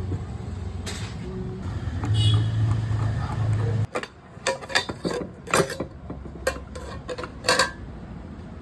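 Hyundai i10's starter cranking the engine steadily for about four seconds without it firing, the sign of a car that cranks but will not start; the cranking stops abruptly. Then come several sharp clicks and knocks.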